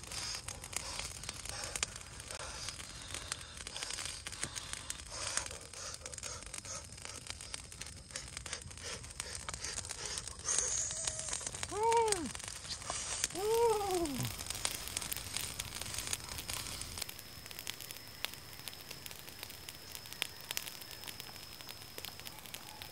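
Wood fire crackling, with rustling and tearing handling noise throughout. Near the middle come two short calls that rise then fall in pitch, and in the second half a thin, steady high whine.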